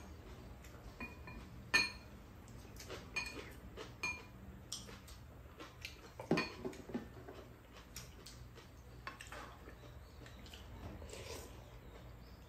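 Metal chopsticks and spoons clinking now and then against ceramic bowls and a pan while two people eat a stew, with a louder slurp of broth from a spoon about six seconds in.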